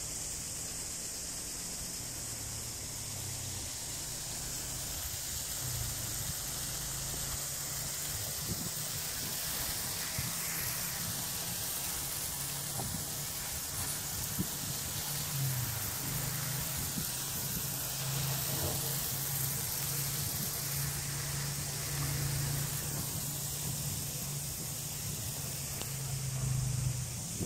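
Garden sprinklers on hoses spraying water, a steady hiss, with a low steady hum underneath.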